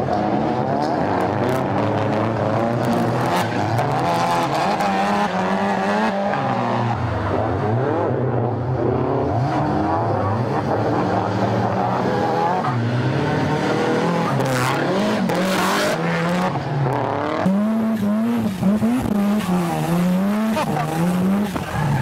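Drift car's engine revving up and down through the corners, held in second gear, with tyres squealing as it slides.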